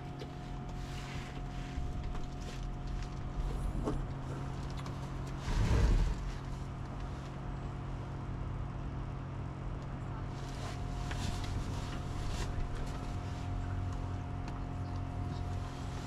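A steady low hum runs throughout, under intermittent rustling and light clicks of takeout food being handled, with one louder thump about six seconds in.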